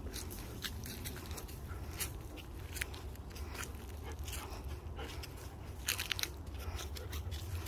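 Dry leaves and twigs crunching underfoot in irregular, scattered crackles as someone walks along a leaf-strewn path, over a steady low rumble.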